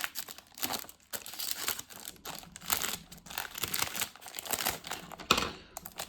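Plastic packaging of a Lego pack being torn open and crinkled by hand: irregular crackling throughout, with one sharp, loud rip near the end.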